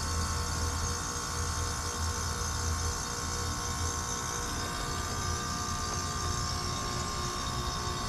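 Lennox Merit heat pump outdoor unit running in its defrost cycle: a steady low hum with a few steady tones and a hiss above it.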